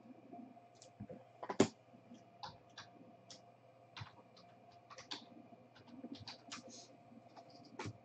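Thick gold-framed trading cards being handled and set down: scattered light clicks and taps, the loudest about one and a half seconds in.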